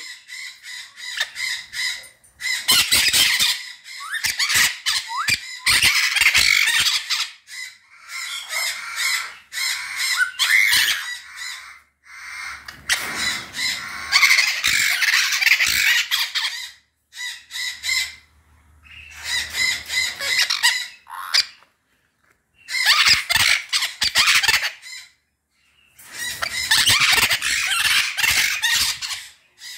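White-fronted Amazon parrots calling loudly in about seven bouts of a few seconds each, with short pauses between them.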